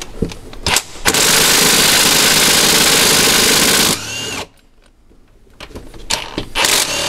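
An impact wrench runs with a fast rattle for about three seconds and then winds down. It is undoing a cylinder head bolt on the Range Rover's V8, and the bolt turns out not to be very tight. A few tool clicks come before and after.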